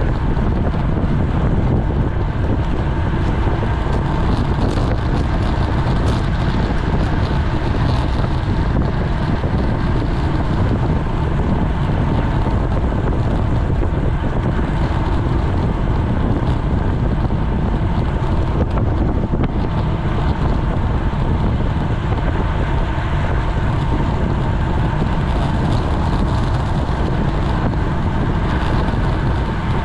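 Wind buffeting the microphone of a GoPro on a road bike ridden at race speed: a steady low rumble with no breaks.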